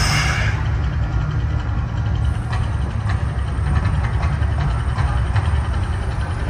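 Deep, steady rumble of the Mirage volcano show. The roaring hiss of a gas flame burst dies away about half a second in.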